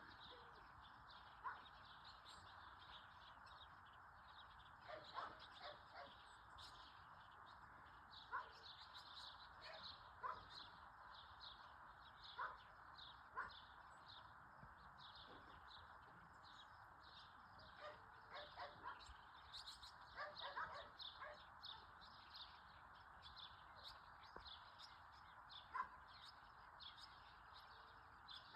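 Faint open-country animal ambience: a steady high drone with a fast, even run of short chirps over it. Scattered short calls, some like distant dog barks, break through about a dozen times.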